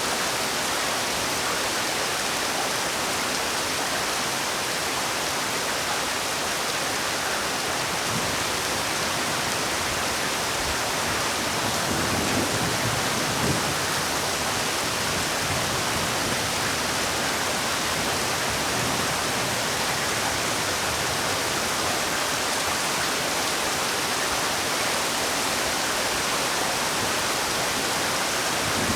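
Heavy rain falling steadily, a dense even hiss with a slightly fuller patch about halfway through.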